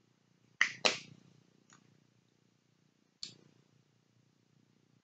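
Sharp plastic clicks from a makeup compact, likely the brow powder's, being handled and opened: two close together about half a second in, a faint one soon after, and another about three seconds in.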